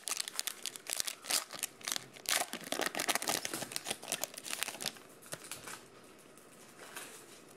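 Foil trading-card pack wrapper crinkling and crackling as it is handled and torn open, busy for the first five seconds or so, then quieter.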